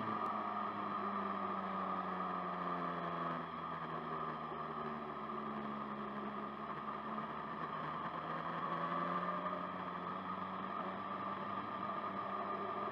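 BMW S1000RR's inline-four engine running under a riding load, over a steady rushing noise. The engine note drops a few seconds in, then climbs again.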